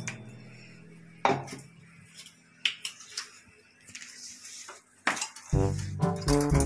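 A few sharp, separate knocks and clinks of plastic kitchenware, an orange plastic cup and mixing bowl, being handled and set down on a countertop. Background music fades out at the start and comes back in about five and a half seconds in.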